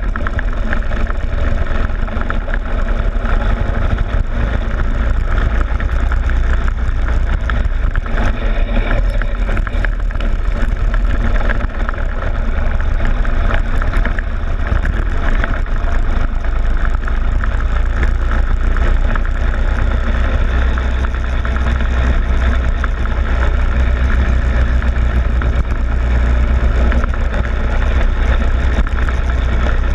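Go-kart engine running steadily at speed, with a heavy low rumble and constant vibration rattle picked up through the camera's loosely secured mount on the kart's front plastic fairing.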